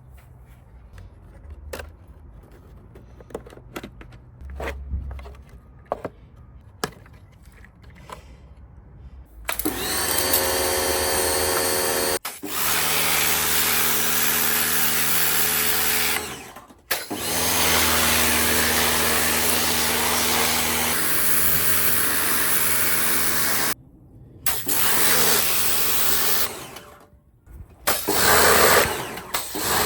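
Light handling clicks and taps, then about ten seconds in a mains electric motor starts up with a whine and runs loudly. It cuts out and restarts several times, with short gaps.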